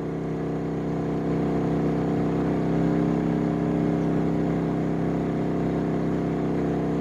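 Genmax GM3200i inverter generator running at about half load (1.7 kW), its engine note swelling slightly over the first couple of seconds and then holding steady. It meters at about 63 dB.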